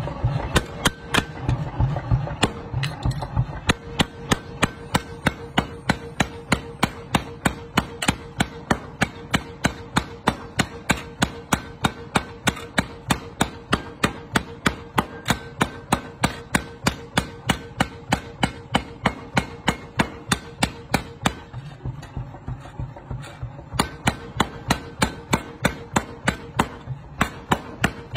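Power hammer ram striking hot steel on the anvil die in a fast, even rhythm of about three sharp metal-on-metal blows a second. The blows turn lighter for a couple of seconds a little past the middle, and a faint steady hum runs under most of them.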